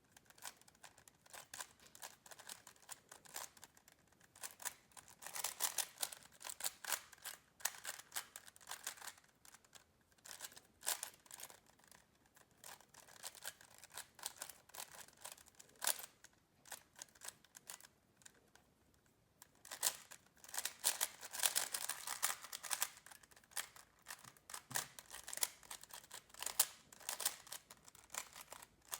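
Magnetic 3x3 speed cube being turned fast during a speedsolve: quick runs of light clicking and clacking as the layers turn and snap into place, with a brief lull a little past the middle.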